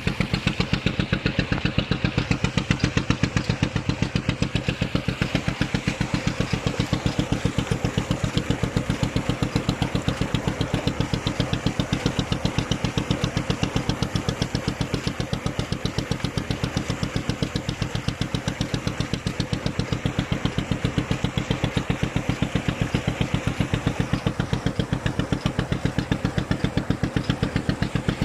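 An engine running steadily at idle, with an even, rapid beat that doesn't change.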